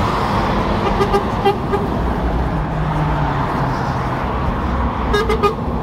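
Heavy motorway traffic rushing past below, with short toots of a lorry's air horn about a second in and again near the end.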